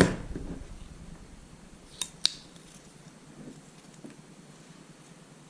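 Handling noise from a slingshot's tube set being fitted into its frame: a sharp knock right at the start, then two sharp clicks about two seconds in, a quarter second apart, with faint rubbing in between.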